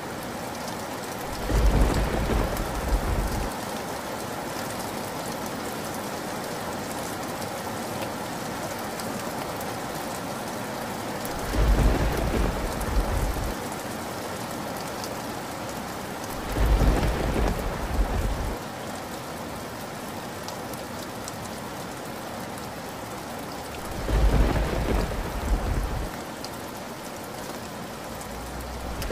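Steady rain falling throughout, with four claps of thunder, each rumbling for about two seconds, spaced several seconds apart, and another beginning right at the end.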